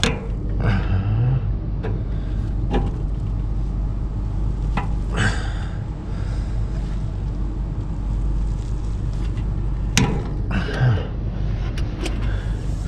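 Steady low mechanical hum, with scattered metallic clicks and knocks from a wrench tightening the pipe fittings on a replacement scroll compressor.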